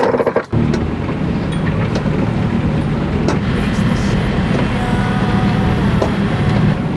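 A sailing yacht's inboard engine running steadily under way in a rough sea, a constant low drone, with faint ticks and a rush of wind and water beneath. It starts abruptly about half a second in, after a brief rhythmic rubbing of a cloth on the hull.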